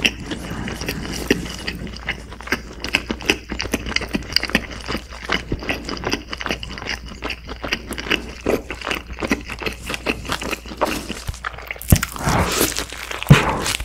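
Close-miked chewing of a mouthful of fried chicken burger with cheese: many small wet clicks and smacks. About twelve seconds in comes a louder bite into the burger.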